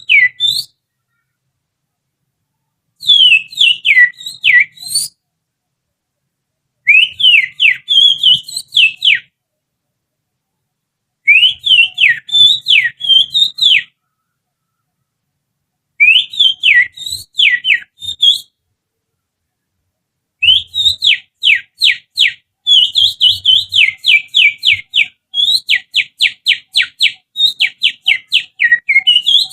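Finger whistle blown through the little finger, imitating an oriental magpie-robin's song as a lure call to provoke a caged magpie-robin. It comes as short phrases of quick, sweeping chirps every few seconds. About two-thirds of the way through it turns into a longer run of rapid falling notes.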